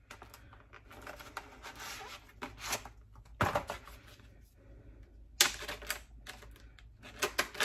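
Plastic tray packaging of burger patties crackling and clicking as it is handled and cut open with a knife: a run of sharp clicks and rustles, loudest about three and a half and five and a half seconds in.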